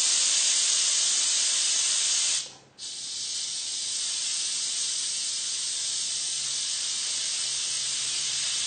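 Compressed air hissing steadily out of an opened bleed valve on a homemade compressor's fire-extinguisher air tank, letting the pressure down. The hiss drops out briefly about two and a half seconds in, then carries on a little quieter.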